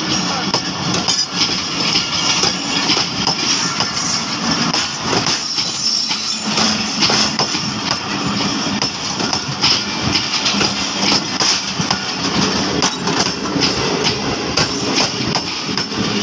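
Passenger train coaches rolling past at close range, gathering speed, their steel wheels clattering over the rail joints in a continuous rattle and rumble.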